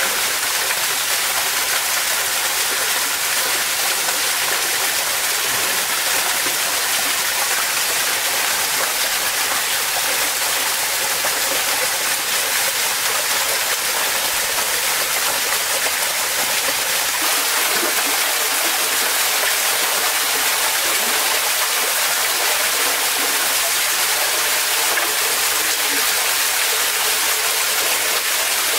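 Shallow forest stream running over stones: a steady, even rush of water.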